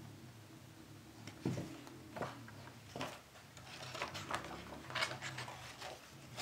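A picture book being shaken and handled: a scattering of short paper rustles and light knocks, most of them between about one and a half and five seconds in.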